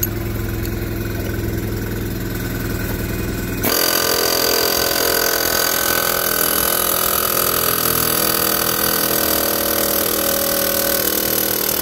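A steady low mechanical hum, then about four seconds in a pneumatic air hammer starts and runs continuously, rattling hard against a bolt spacer to drive a seized steering spindle down out of a garden tractor's front axle.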